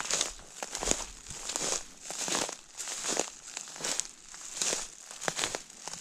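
Footsteps crunching through a thick layer of dry fallen leaves at a steady walking pace, about one step every three-quarters of a second.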